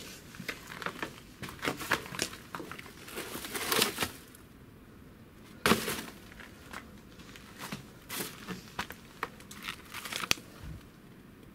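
Old paper, booklets and paper bags rustling and crinkling as they are handled and shifted, with scattered small clicks and one sharper knock a little after halfway.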